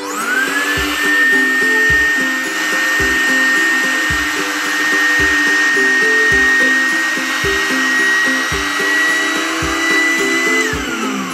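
Small electric air pump inflating an air bed: its motor spins up with a rising whine, runs steadily with the pitch creeping slightly higher, and winds down near the end. Background music with a steady beat plays under it.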